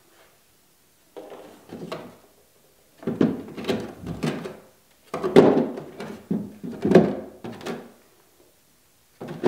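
Sanding drums and sleeves being pulled from and pushed into the plastic storage slots on the front of a Ridgid oscillating spindle sander: three bouts of sliding, scraping and knocking, about a second in, about three seconds in, and from about five to eight seconds in, then a short knock at the end.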